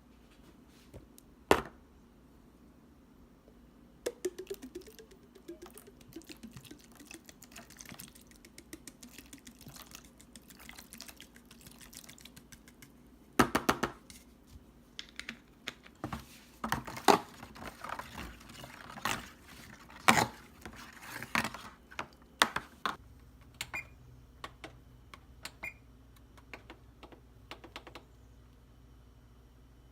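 Kitchen work: irregular clicks and knocks of utensils, dishes and cookware being handled, busiest and loudest in the middle of the stretch, with a few sharp knocks standing out.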